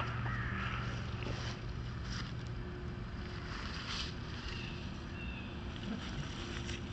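Outdoor ambience: a steady low rumble with wind noise buffeting the camera microphone, and a few faint clicks.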